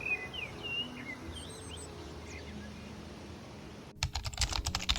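Birds chirping, a few short rising and falling calls, over faint background music. About four seconds in, this cuts off suddenly into rapid clicking like typing on a computer keyboard.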